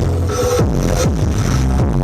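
Electronic dance music played loud through a large carnival sound system during a sound check, with heavy bass and repeated falling bass sweeps.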